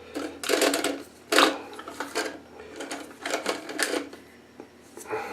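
Plastic toilet fill valve being lengthened by hand, its height adjustment ratcheting out in several short bursts of rapid clicks.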